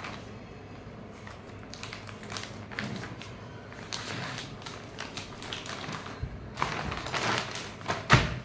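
Scissors cutting open a plastic courier mailer, with crinkling and rustling of the plastic bag; the rustling grows louder as a plastic-wrapped package is pulled out, and a sharp thump comes near the end.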